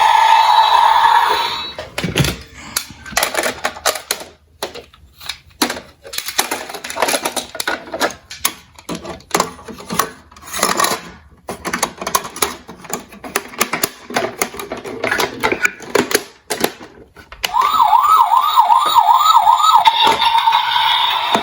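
Die-cast toy emergency vehicles clicking and clattering in quick, irregular succession as they run down a toy slope. A steady siren tone cuts off early on. Near the end an electronic siren yelps in quick rising sweeps, about three a second, then holds a steady tone.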